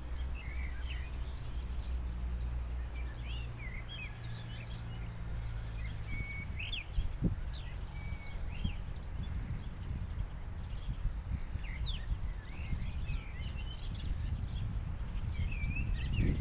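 Several small songbirds chirping and singing, many short rising and falling notes throughout, over a low rumbling background noise.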